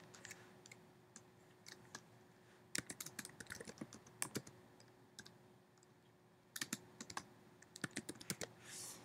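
Faint typing on a computer keyboard: short runs of keystrokes with pauses between them.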